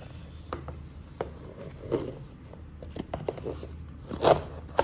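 Hands rummaging through a box of small fidget toys: scattered light clicks and knocks as pieces are picked up and set down, with a louder scrape or rustle about four seconds in.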